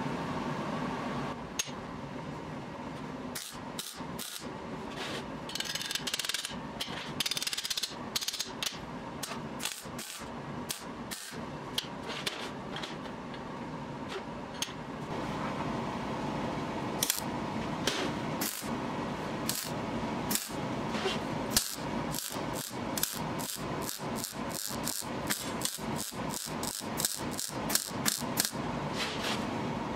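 A run of sharp metallic clicks and knocks from steel parts and tools being handled on a steel workbench, sparse at first and then coming quickly and evenly, about three a second, in the last third.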